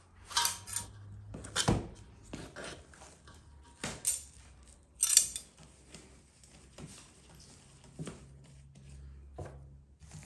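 Hands shaping bread dough on a floured wooden board: irregular soft knocks, pats and brushing scrapes of hands and dough against the wood, the loudest brushing scrape about five seconds in.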